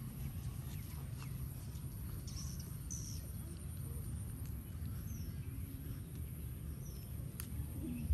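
Outdoor ambience: a steady low rumble with a few faint, short bird chirps, a couple near the middle and more a little later.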